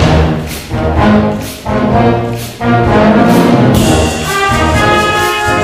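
School wind band playing with brass to the fore: trombones and trumpets over drums. Short accented chords with drum hits give way, after about two and a half seconds, to a steadier passage with high held notes.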